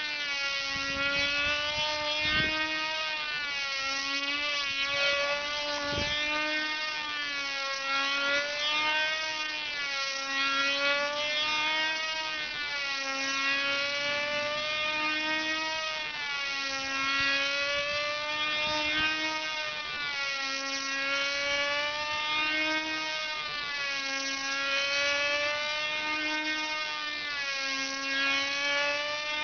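Small high-revving model-airplane engines of control-line combat planes running flat out as the planes circle, a high whine whose pitch rises and falls about every two seconds with each lap. A few low thumps come in the first six seconds.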